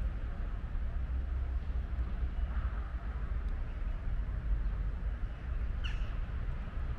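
Steady low outdoor rumble, with one short high-pitched call about six seconds in.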